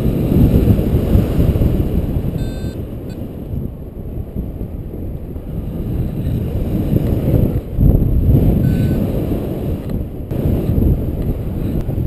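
Airflow rushing over the camera microphone of a paraglider in flight, a heavy low rumble that swells and eases. A short electronic beep sounds about two and a half seconds in and another near the end.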